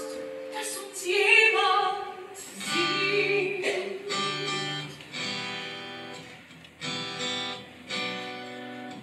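Live accompaniment to a stage-musical song: strummed acoustic guitar chords, each new chord coming roughly every second, with a short sung phrase about a second in.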